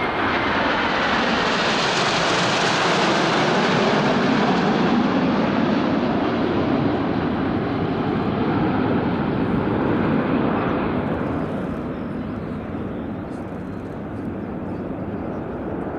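A jet formation of BAe Hawk T1 trainers, joined by an Aero L-39, a Northrop F-5E and an Aermacchi MB-339, flying past with a steady jet roar. The noise swells over the first couple of seconds and holds. After about ten seconds it grows duller and fades as the formation moves away.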